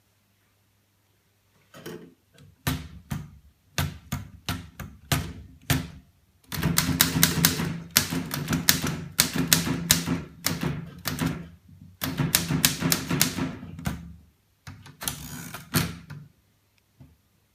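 A 1921 Underwood Standard No. 5 manual typewriter being typed on: a few slow, separate keystrokes, then quick runs of typebar strikes with short pauses between them. A short rasping run comes near the end.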